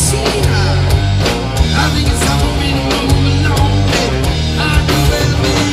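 Rock band playing an instrumental passage: distorted electric guitar over bass guitar and drums keeping a steady beat.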